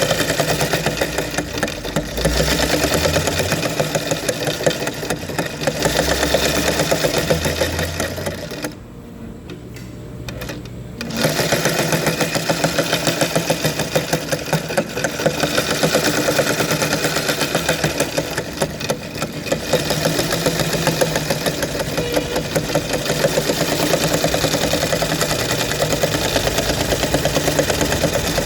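Sewing machine running, a fast, even clatter of stitching. About a third of the way in it drops to a quieter run for roughly two seconds, then picks up again at full level.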